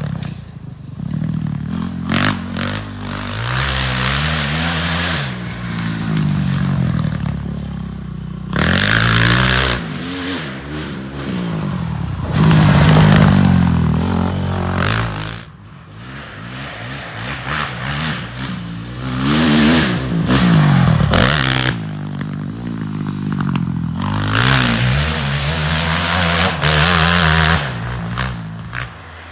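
Four-stroke single-cylinder engine of a 2005 Honda CRF450R dirt bike converted to a three-wheeler, revving up and down over and over as it is ridden hard, with short throttle-offs between bursts, one deep drop about halfway through.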